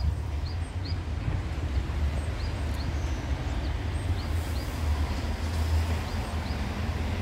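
Steady low rumble of road traffic passing nearby, with faint short high chirps heard now and then on top.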